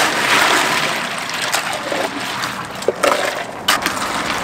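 Long plastic ladle stirring an iced grass jelly (cincau) drink in a large plastic dispenser: liquid and ice slosh and splash, with a few sharp knocks against the container. Near the end the drink is poured from the ladle in a stream into a plastic cup.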